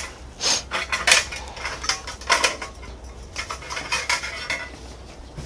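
Light metallic clinks and rattles of small metal parts being handled, a handful of separate sharp clatters that grow weaker near the end.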